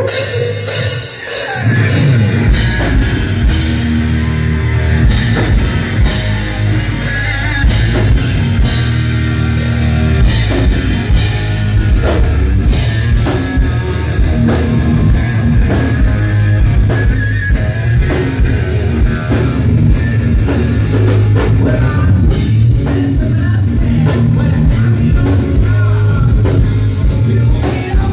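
A hard rock band playing live and loud: electric guitar over a drum kit and bass, kicking in at full strength about two seconds in.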